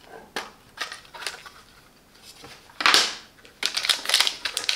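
Plastic power bank case being opened by hand: a few light plastic clicks, then a short scraping slide about three seconds in as the cover comes off, followed by the crackling crinkle of a small plastic bag being handled.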